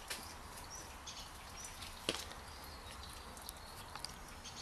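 Faint, sparse clicks and taps of the oil filter being worked loose by hand and tool, with one sharper click about two seconds in, over a low steady hum.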